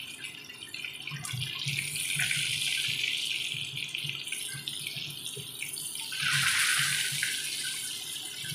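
Besan-and-semolina-coated pomfret pieces sizzling in hot oil in a flat pan, with light spatula knocks against the pan. About six seconds in the sizzling swells louder for a second or so as a raw side is turned into the oil.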